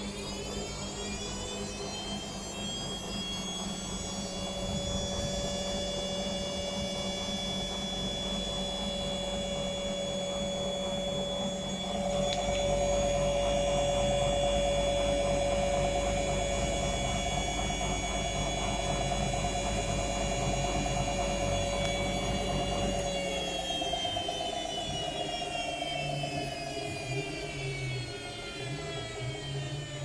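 Whirlpool FL 5065 front-loading washing machine on a 600 rpm spin. The motor whine climbs to speed right at the start, holds steady with a low rumble from the drum, then falls in pitch as the drum slows over the last several seconds.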